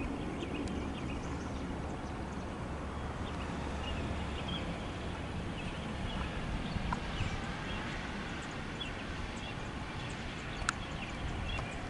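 Low, steady rumble of a freight train moving off down the track, with small birds chirping here and there. A single sharp click near the end.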